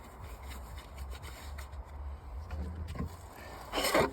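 Solo 642 chainsaw being readied with faint handling rustle, then one short rasping pull of its recoil starter cord near the end. The engine does not fire.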